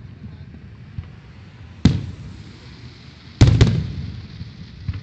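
Aerial firework shells bursting overhead: one bang a little under two seconds in, then a louder double bang about a second and a half later, each trailing off in a rolling low echo.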